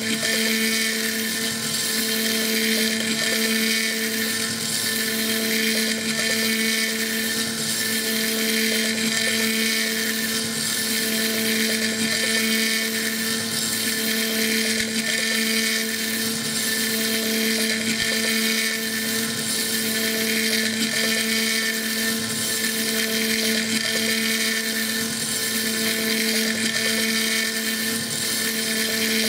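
CNC mill spindle running with a small end mill cutting Stone Hopea Burl wood on a rotary fourth axis: a steady whine, with the cutting noise swelling and easing about every two seconds. These are fine finishing passes over the ring's radial sections.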